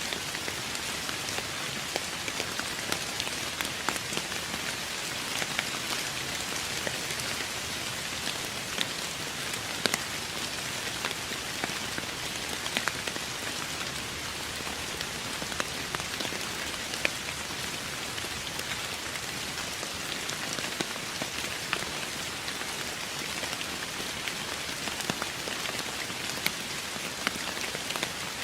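Steady rain falling on a surface, an even hiss with many separate drops pattering sharply on top.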